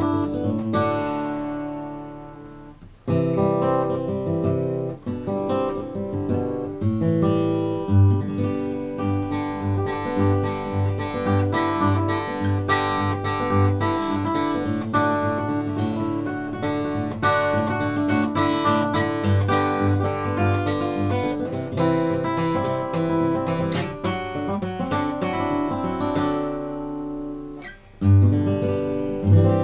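Bedell Earthsong orchestra-model acoustic guitar played solo, picked notes mixed with strummed chords. A chord rings out and fades about three seconds in before the playing starts again, and another fades shortly before the end, followed by a loud new chord.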